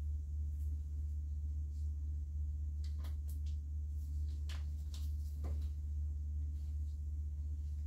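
Steady low hum with about half a dozen faint light clicks and rustles, mostly in the middle, from hands working among woody antler reishi (Ganoderma multipileum) fruiting bodies on a sawdust grow block.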